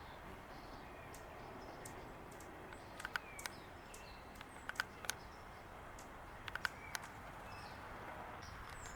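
A few faint, sharp chip notes from a small bird, in small clusters of two or three, over a steady outdoor background hiss.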